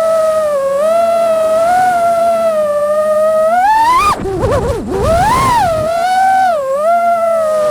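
FPV quadcopter motors and propellers whining at a wavering pitch that follows the throttle. About four seconds in the pitch climbs sharply, then falls and wobbles for about a second before settling back to a steady cruising whine.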